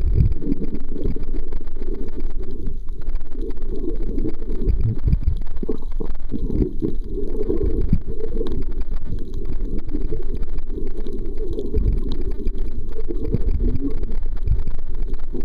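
Low, muffled water noise heard through a submerged camera, with several dull thumps.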